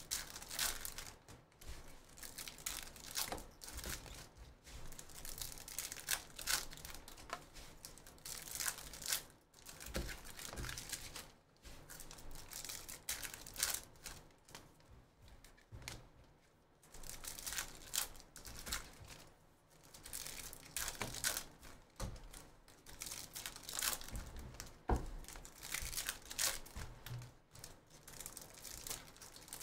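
Trading-card pack wrappers being torn open and crinkled by hand, in irregular bursts of crackling with a few short pauses.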